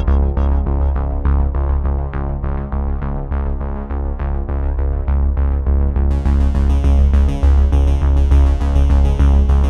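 Background music with a steady beat and a strong bass line; a brighter high layer comes in about six seconds in.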